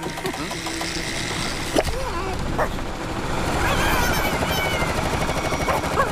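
Cartoon slapstick sound effects: a loud, dense rattling clatter with two sharp knocks, and high whining animal cries that rise and fall in the second half.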